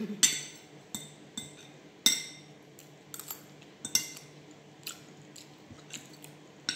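Metal spoon and fork clinking and scraping against a ceramic plate, a sharp clink roughly every second, the loudest near the start and about two seconds in, with soft chewing between.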